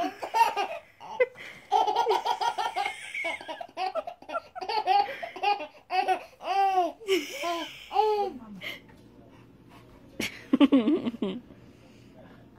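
A baby laughing in a long run of short repeated belly laughs that stops about eight seconds in. A shorter laugh follows near the end.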